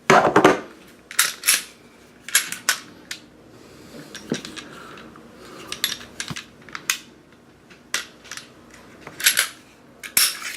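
Sharp clicks and clacks of a Smith & Wesson M&P Shield .40 pistol and its parts being handled and taken apart, several at irregular intervals.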